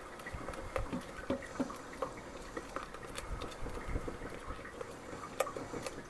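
Strawberry puree with cornstarch simmering in a saucepan, with soft irregular bubbling and popping as a silicone spatula stirs it and the puree starts to thicken. A sharper tap about five and a half seconds in.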